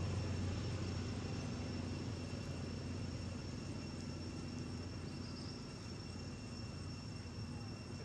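Low, distant engine-like rumble that slowly fades away, over a steady high insect drone.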